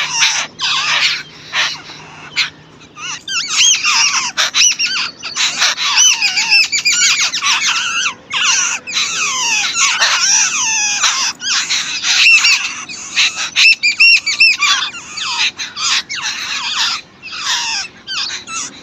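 Babblers calling at the nest: a dense, nearly continuous chatter of high, squeaky, overlapping notes, broken by a few short pauses.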